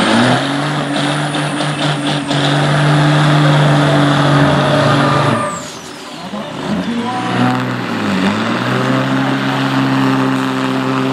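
Turbocharged diesel semi-truck engine held at high revs during a burnout, with a high turbo whistle above the engine note. Around the middle the engine drops away and the whistle falls, then the engine revs up again with the whistle rising, dips briefly, and holds high.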